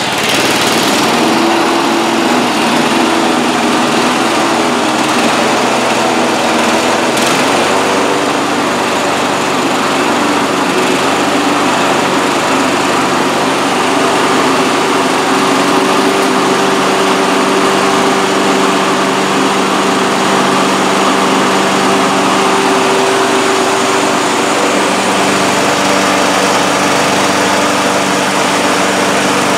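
John Deere JX75 walk-behind lawn mower's engine running steadily at a constant speed.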